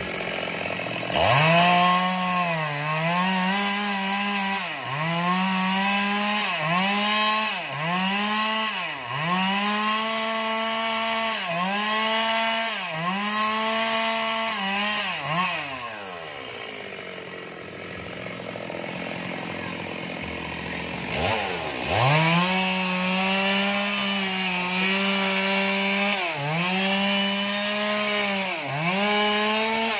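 Chainsaw cutting through fallen tree limbs: the engine revs up about a second in and runs at high revs, its pitch dipping about once a second as the chain bites into the wood. About halfway through it drops to idle for some five seconds, then revs up and cuts again.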